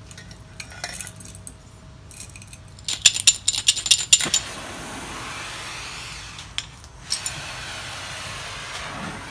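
Hand torch on a yellow MAP gas cylinder being lit: a rapid run of sharp igniter clicks about three seconds in, then the steady hiss of the burning gas. The hiss cuts out briefly about two-thirds of the way through and comes back after a couple of clicks.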